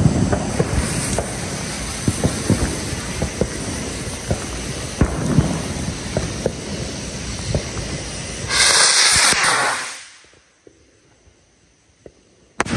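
Consumer firework rocket (HellCat rocket) crackling and popping irregularly, then a loud hiss about eight and a half seconds in that lasts just over a second and falls away to near silence. A sharp crack comes at the very end.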